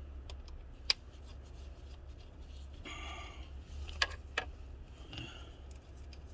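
A few sharp metallic clicks and a short scrape of a screwdriver working on the screw that holds an ignition coil, over a low steady hum.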